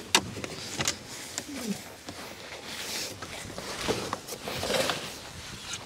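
Fishing gear being handled and packed away: a few sharp knocks and clatter over rustling.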